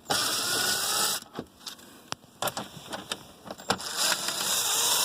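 Small handheld power driver's motor running in two bursts, about a second each, as it backs out dash bolts, with a few sharp clicks of tool and metal handling in between.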